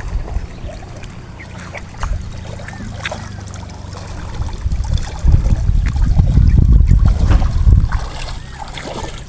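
Water trickling and splashing as a fish trap full of small fish is handled and emptied, with scattered clicks and knocks. A heavy low rumble on the microphone swells from about five seconds in and eases off near the end.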